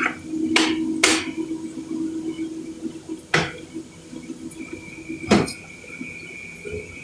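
A sharp blade slicing through paper in a handful of quick, separate strokes, over a steady low tone that stops with the last stroke about five seconds in.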